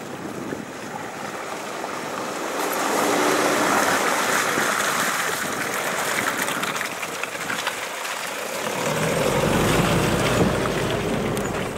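Toyota Hilux pickup driving up a muddy rutted track, its engine working under load and its tyres churning through mud. It grows louder as it comes on, and a deep rumble comes in about nine seconds in as it passes close by.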